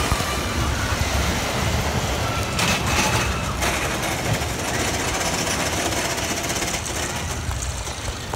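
Roller coaster train running along its steel track, a steady rattling rumble with a few sharper clacks about three seconds in.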